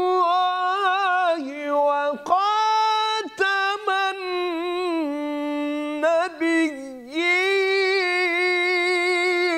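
A man reciting the Quran in the slow, melodic mujawwad style, holding long ornamented notes that waver in pitch, with a few brief breaks for breath.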